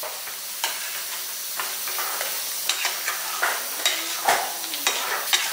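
A perforated steel ladle stirring a thin, watery curry in an aluminium pressure cooker, with irregular clinks and scrapes against the pot over a steady hiss. Water has just been added to thin the gravy before pressure cooking.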